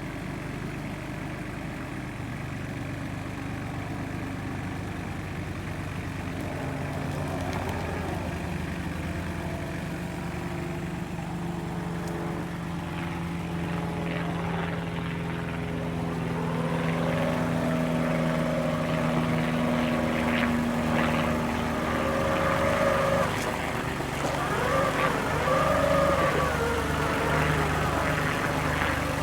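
Vehicle engine running steadily. In the second half a wavering whine rises over it and changes pitch, with some light clatter, as the machine works under load.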